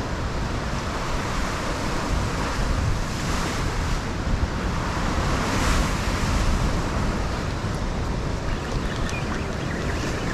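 Ocean waves surging and breaking against the foot of a rock cliff in a steady wash, swelling louder a couple of times, with wind rumbling on the microphone.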